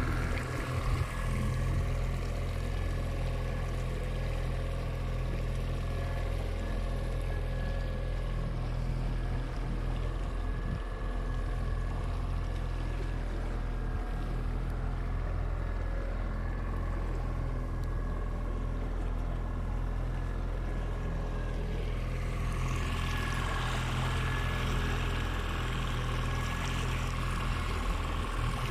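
Boat's outboard motor running steadily at slow trolling speed: a constant low hum with a couple of steady higher tones above it. About 22 seconds in, a brighter hiss rises alongside the motor.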